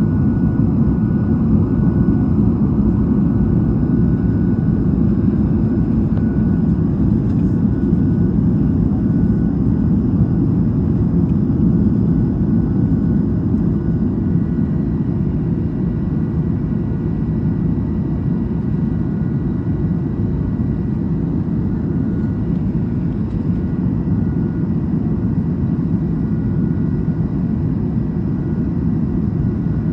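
Cabin noise of an Airbus A220 climbing out after takeoff: a steady, loud low rumble from its Pratt & Whitney PW1500G geared turbofans and the airflow, with a faint high whine that shifts pitch about halfway through.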